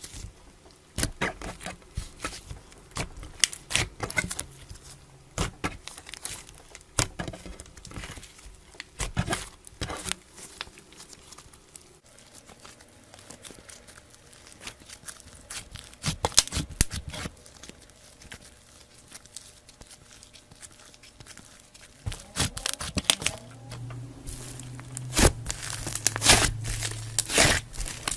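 Slime being worked by hand, giving an irregular run of sharp crackling clicks and pops, thickest near the end, with a low hum under the last few seconds.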